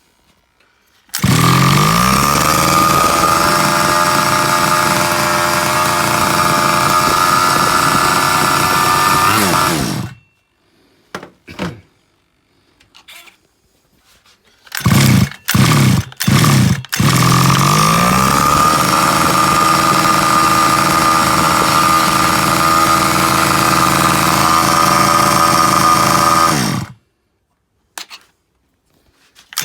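Carson CRT small engine starting with a quick rise in pitch, running steadily at a high idle, then cut dead about ten seconds in as the kill switch is tested. After a few short bursts it catches and runs steadily again, then is cut off abruptly once more near the end.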